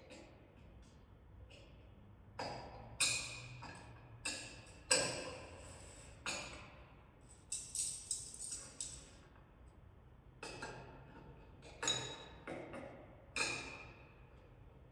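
Sparse, irregular percussive taps and clicks, each with a short ringing decay, as quiet effects within a saxophone quartet performance; no held notes.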